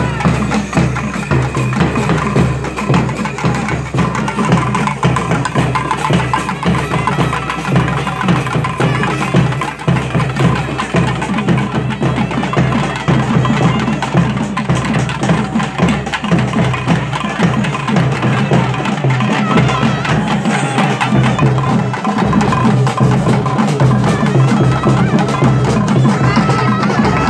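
Loud traditional festival percussion music, a fast steady drumbeat with struck, clacking strokes, with crowd voices mixed in.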